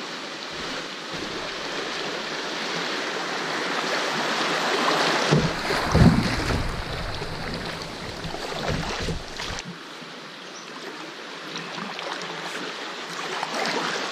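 Shallow river riffle rushing and splashing around a kayak's hull, louder toward the middle. From about five to nine seconds in, wind buffets the microphone with low rumbles.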